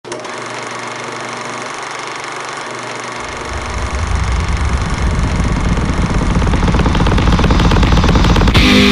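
Dense, gritty noise drone from a soundtrack intro. A deep low rumble comes in about three seconds in, and the whole texture swells steadily louder.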